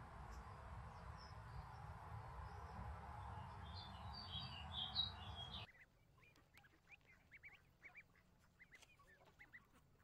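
Stream water running steadily, with a few small bird chirps about four seconds in. About halfway the water sound drops away suddenly, and mallard ducklings peep faintly in many short, quick calls.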